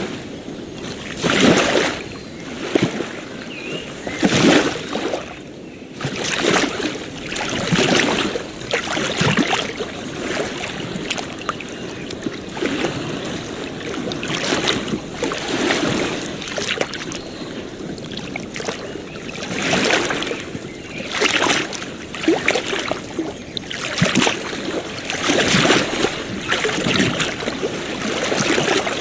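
Ocean waves washing and splashing on a shore, in uneven surges every second or two over a steady hiss of water.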